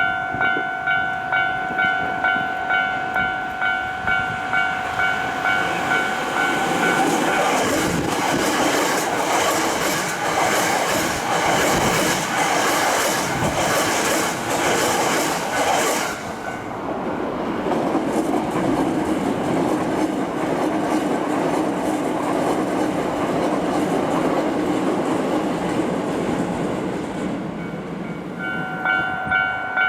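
Japanese level-crossing warning bell ringing in a steady rapid ding-ding rhythm, then a Hankyu Kyoto Line electric train passing over the crossing at speed, its wheels clattering on the rail joints and drowning out the bell. About halfway through the sound changes suddenly to a steadier, lower train rumble, and the crossing bell is heard again near the end.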